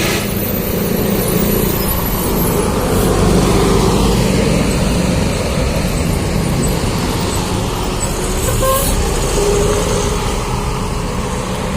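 Bus engine and tyre noise, running past with steady road-traffic roar.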